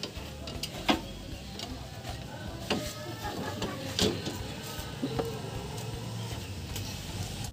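Metal knocks and clinks of a steel hood latch assembly being handled and set against the car's radiator support: a few separate sharp strikes, the loudest about four seconds in.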